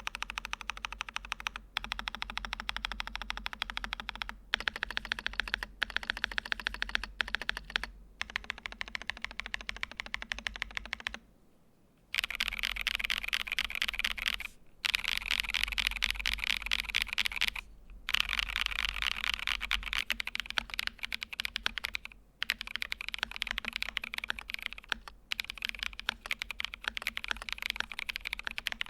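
Typing on an AKKO x VARO M3 Pro Cream gasket-mount custom mechanical keyboard fitted with Bsun Holy Panda V2 switches: fast runs of keystrokes broken by short pauses, the longest about eleven seconds in.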